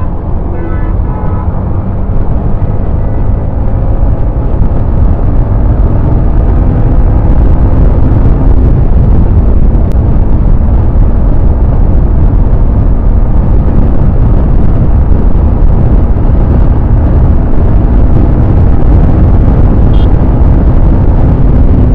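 Yamaha MT-15's single-cylinder engine running hard under steady acceleration at highway speed, from about 60 to about 100 km/h. Heavy wind rush at speed fills the sound throughout.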